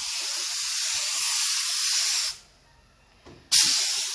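Gravity-feed paint spray gun hissing as it sprays. It cuts off a little over two seconds in and starts again about a second later as the trigger is released and pulled again.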